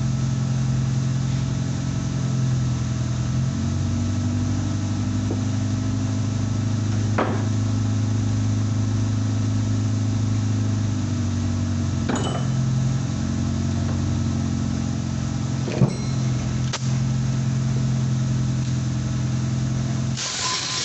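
A motor running steadily, its hum shifting pitch slightly twice, with a few sharp metallic knocks.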